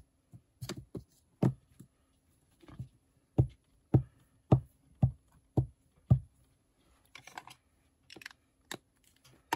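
Small plastic ink-pad cube dabbed repeatedly against a stamp on a tabletop to load it with ink: a run of six knocks about half a second apart in the middle, with lighter clicks and taps around them.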